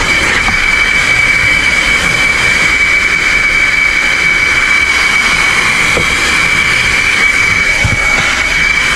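Car-wash vacuum running steadily with its hose at a truck's cloth seat: a constant high-pitched whine over a rushing suction hiss.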